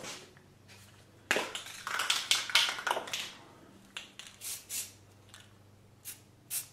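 Aerosol can of brown spray paint hissing in bursts: a longer spray just over a second in, then several short puffs. The paint is going onto fresh steel welds.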